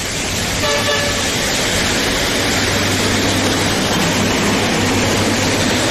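Heavy tropical downpour: a loud, steady hiss of rain, with a low hum underneath for most of it.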